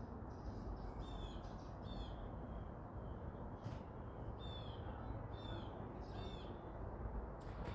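Several short, downward-sliding bird calls about a second apart, over a steady low rumble of background noise.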